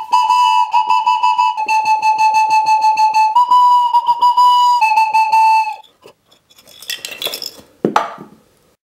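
A 3D-printed plastic whistle blown in one long blast of about six seconds: a single high tone that steps slightly up and down in pitch a few times, then cuts off. A couple of short, fainter noises follow near the end.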